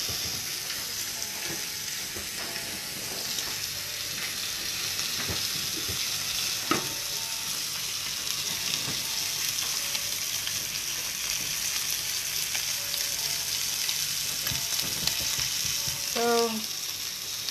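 Beef steak searing in a hot cast-iron skillet: a steady, high sizzle of fat and juices. One sharp click about seven seconds in, and a short pitched sound near the end.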